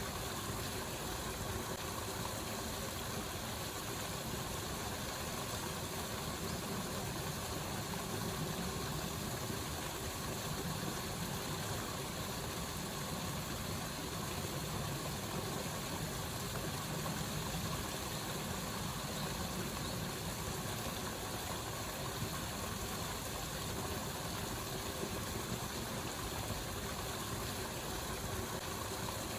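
Waterfall: steady, unbroken rush of falling water, even in level throughout.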